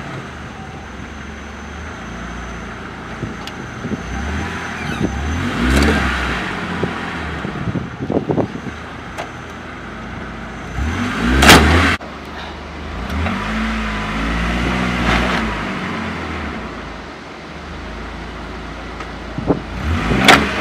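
Four-wheel-drive pickup's engine running and revving in surges as it strains to pull a tree stump out on a strap and then a chain. There is a loud sharp burst about halfway through, and the revs rise and fall in the second half.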